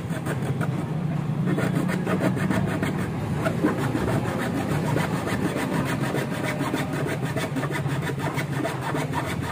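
A hand-held saw blade cutting plywood in quick, repeated back-and-forth strokes, widening a round speaker hole in a car's fabric-covered parcel tray. A steady low hum runs underneath.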